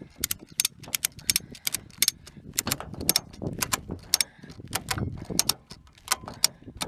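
Tie-down strap being cinched over a truckload of firewood: rapid, irregular metallic clicks and rattles, several a second, over wind rumble on the microphone.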